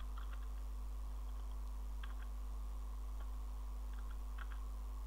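A few scattered keystrokes on a computer keyboard, slow and spaced out, over a steady low electrical hum.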